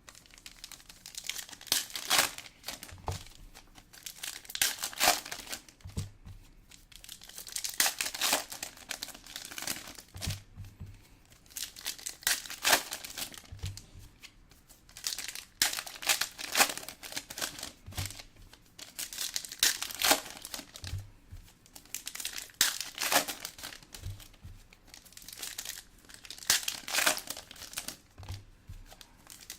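Foil trading-card pack wrappers being torn open and crinkled, in repeated bursts of crackling every couple of seconds.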